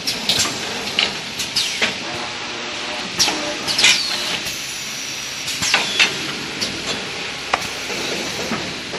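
XY AI 653D toilet paper bundle packing machine running, with a steady background noise and irregular sharp hisses and clacks from its air-driven cylinders, about a dozen spread over the stretch.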